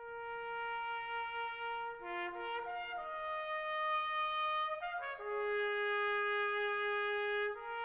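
Instrumental intro music of long held notes in chords, shifting to new notes a few times.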